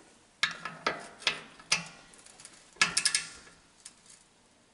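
Sharp metallic clicks from a ratchet torque wrench tightening engine side-cover bolts to 17 foot-pounds. There are four single clicks about half a second apart, then a quick run of several clicks about three seconds in.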